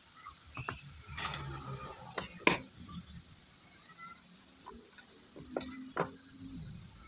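Side cutters snipping wire leads on a circuit board, with tool handling: a handful of sharp clicks, the loudest about two and a half seconds in and another pair near six seconds.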